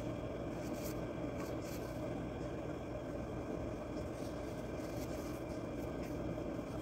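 Steady low background hum and hiss, with a few faint soft ticks.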